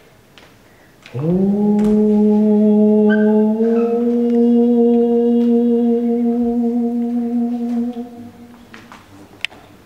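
Background music: a single long low note slides up into pitch about a second in. It is held steady, steps slightly higher, then fades away near the end.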